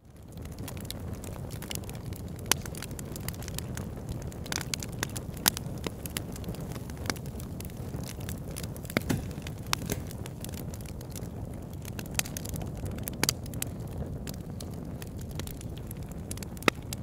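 Wood fire crackling in a fireplace: a steady low rumble of flames with irregular sharp pops and snaps. It comes in from silence right at the start.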